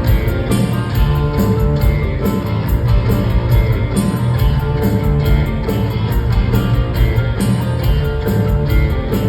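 Rock band playing live, guitar to the fore, in an instrumental passage with a steady beat.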